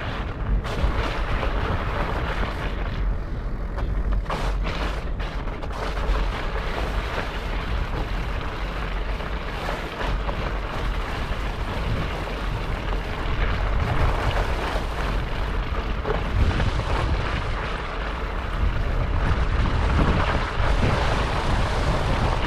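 Wind buffeting the microphone of a camera riding on a fat bike as it rolls through snow and slush: a steady, dense low noise with no distinct separate sounds.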